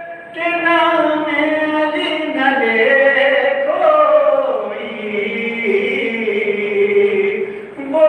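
Male voices chanting soz-o-salam, the Urdu lament recited without instruments: slow, drawn-out phrases with long held notes that glide in pitch, with a short break just after the start and another near the end.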